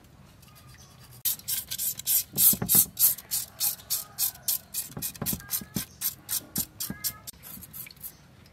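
Knife scraping along the slimy skin of a large tire track eel, in fast repeated strokes of about four a second, cleaning off the slime.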